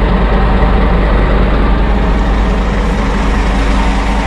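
Scania R truck's diesel engine running steadily with a deep, even hum.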